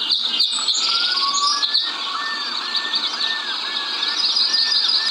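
Birds chirping in a dense, busy chorus. From about two seconds in, one bird repeats a short arching whistle about twice a second.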